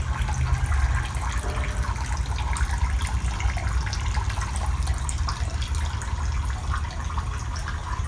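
Steady running, trickling water in a shallow tiled tank, over a steady low hum.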